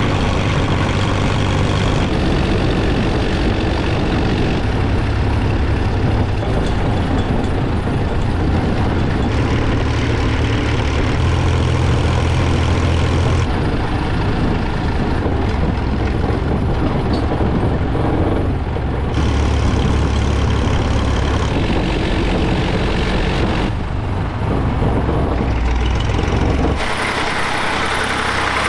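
1960 Fordson Dexta tractor engine running steadily while driving along the road, heard close up from the driver's seat. Near the end the sound changes as the tractor is heard from the roadside instead.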